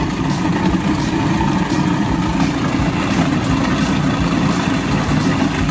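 Food processor motor running steadily, its blade pureeing raw chicken dark meat and egg into a mousseline forcemeat.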